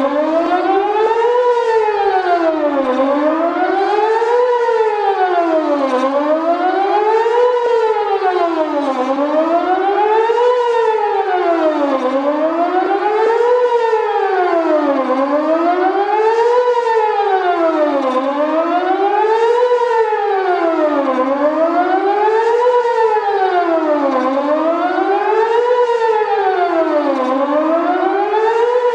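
Whelen WPS 2810 electronic outdoor warning siren sounding a steady rising-and-falling tone, its pitch climbing and dropping about every three seconds during a routine test.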